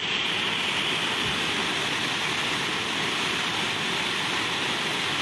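Flash-flood water rushing in a steady, unbroken torrent.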